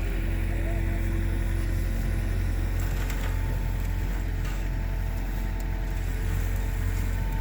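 Excavator engine running steadily while working a tree-digging attachment: a constant low drone with a few faint steady tones above it.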